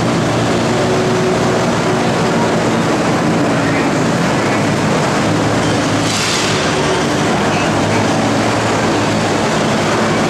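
Antique tractor engine idling steadily while the tractor is hitched to the pulling sled.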